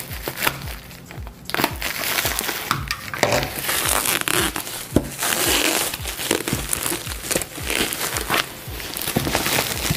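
Paper packaging crinkling and rustling as a parcel is unwrapped by hand, in an irregular run of crackles and rustles.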